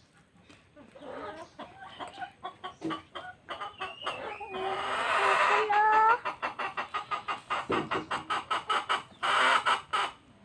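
Chickens clucking: a rapid run of clucks, with louder squawks in the middle and near the end.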